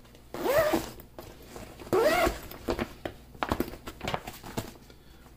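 Zipper on a Tarion Pro XP camera backpack being pulled in two quick strokes, about half a second in and again at two seconds, followed by light clicks and rustling of the bag's fabric.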